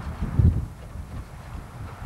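Wind buffeting the microphone: an uneven low rumble with a strong gust about half a second in.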